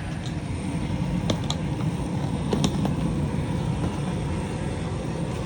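Steady low rumble, like distant traffic or engine noise, with a few faint short clicks or chirps over it.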